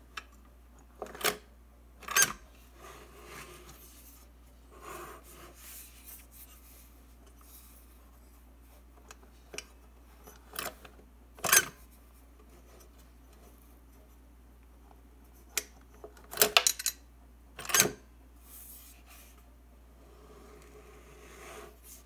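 Cast iron mechanical bank, a Book of Knowledge reproduction of the Bird Feeding Nest bank, being handled and its parts worked: sharp metal clacks and knocks at irregular intervals, with quieter scraping and rubbing between. The loudest come in a quick cluster about three quarters of the way through.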